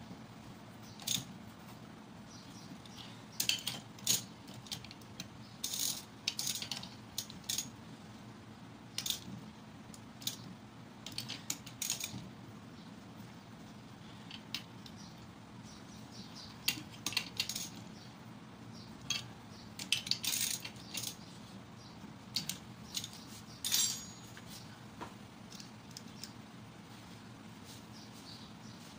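Ratchet wrench clicking in short bursts, with metal tools and bolts clinking, while the cylinder head bolts of a Honda GX110 engine are tightened.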